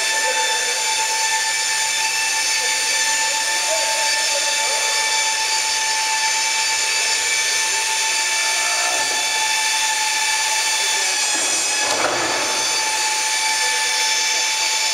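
Steady high-pitched multi-tone whine of a Boeing 737's hydraulic system powering the flight controls. About eleven to twelve seconds in, a brief rising rush comes as the wing spoiler panels raise.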